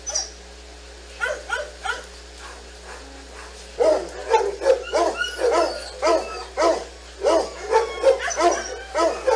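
Dogs barking: a few barks about a second in, then repeated barking about twice a second from about four seconds in.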